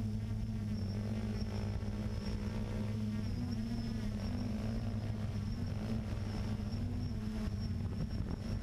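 Drone's electric motors and propellers buzzing steadily in flight, picked up by its on-board camera, the pitch wavering slightly.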